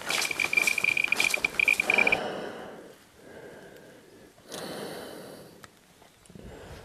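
Handheld Geiger counter beeping rapidly: a high-pitched alarm tone that breaks on and off with sharp clicks, signalling a raised radiation reading, stops about two seconds in, leaving fainter background noise.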